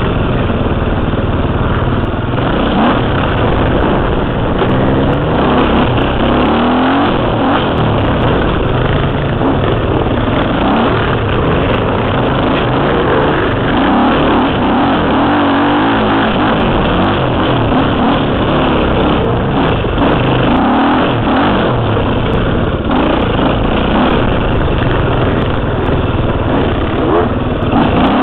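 KTM 300 two-stroke enduro motorcycle engine, heard from the rider's helmet camera, revving up and down continuously as the throttle is worked on and off along a twisting dirt trail.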